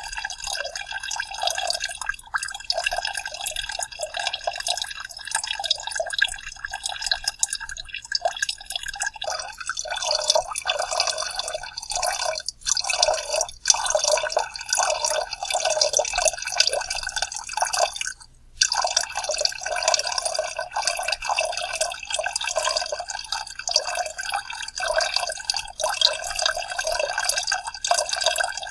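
Soda being poured out in a continuous splashing stream of liquid, with brief breaks about twelve seconds in and a slightly longer one around eighteen seconds.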